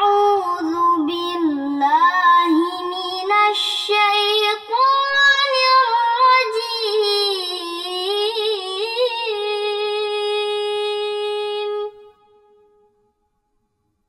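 A female reciter chanting Quranic Arabic solo in a melodic tajwid style. It is one long ornamented phrase with a short breath partway through, ending on a long held note that stops about twelve seconds in.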